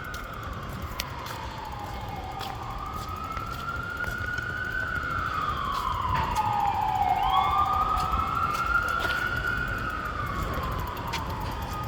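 Emergency vehicle siren wailing in slow rises and falls of a few seconds each, with the pitch jumping sharply back up about seven seconds in. It grows louder toward the middle and eases off slightly near the end, over low traffic rumble.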